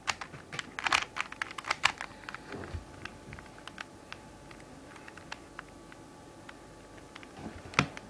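Plastic Rubik's cube layers clicking as they are turned by hand: a quick run of clicks over the first couple of seconds, then only scattered faint ticks, with a louder clack near the end.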